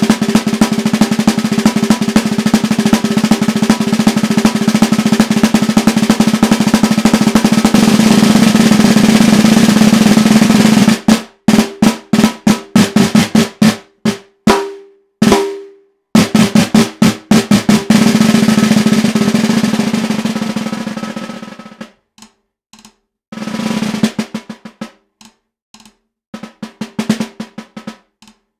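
Snare drum played with wooden sticks: a long, loud roll, broken about eleven seconds in by a run of separate strokes with short gaps. A second roll follows and fades away, then after a brief pause come a short roll and scattered single strokes.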